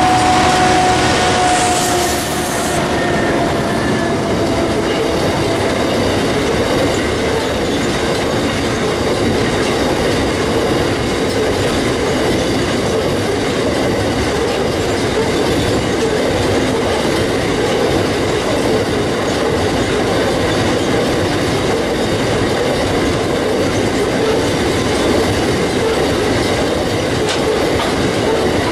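Diesel locomotives of a freight train pass close by, with a steady whine that fades away over the first few seconds. A long rake of covered hopper wagons then rolls past, with steady wheel-on-rail noise and clatter.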